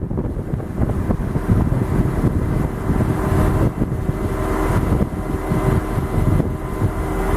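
A train passing close by: a low, continuous rumble with a steady hum, and wind buffeting the microphone.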